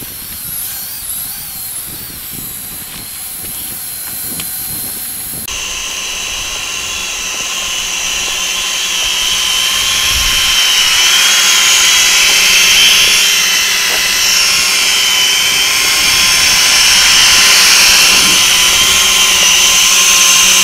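XK X300 quadcopter's motors and propellers whining as it flies in and hovers, growing steadily louder as it comes close. About five seconds in the sound changes suddenly to a fuller whine with several steady tones.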